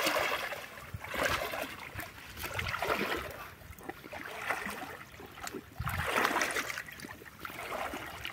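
Shallow water sloshing and swishing in a few surges, churned by people wading through it.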